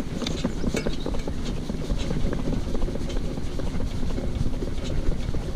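Shetland pony cart rolling along a tarmac road: a steady rumble from the wheels, with scattered clicks of hooves and harness, and wind on the microphone.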